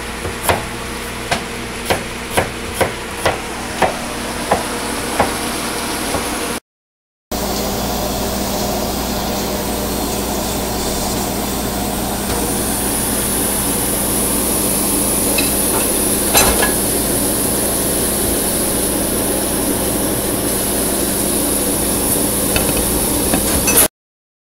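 A kitchen knife chopping on a cutting board, about two sharp strikes a second for some six seconds. After a brief break, a pot of lentil and vegetable soup boils with a steady hiss.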